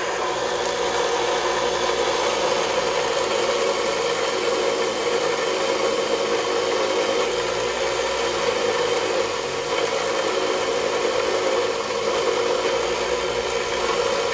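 Small Grizzly Industrial bench belt sander running steadily, its belt grinding away the rubber or silicone edge of a car suspension top hat pressed against it, taking it down to the hard plastic ring inside.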